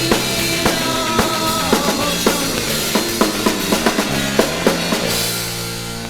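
Garage rock played from a 7-inch vinyl record: a drum kit keeps a steady beat, about two hits a second, under bass and guitar chords. About five seconds in the drums stop and a held chord rings on, slowly fading.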